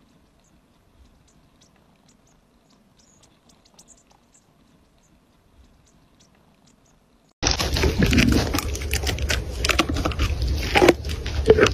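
Near quiet with faint ticks, then suddenly, about seven seconds in, loud crunching and cracking as a camel chews a thorny dry branch close to the microphone, over a steady low rumble.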